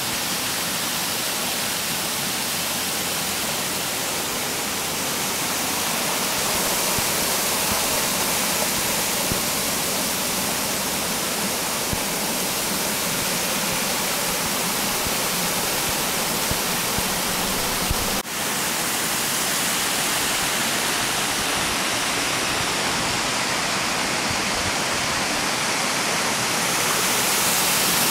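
Water steadily rushing down a wide artificial wall waterfall, a little louder near the end.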